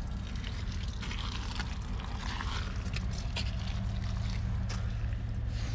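Small boat's motor running steadily under way, a low even hum, with scattered knocks and rattles from the hull.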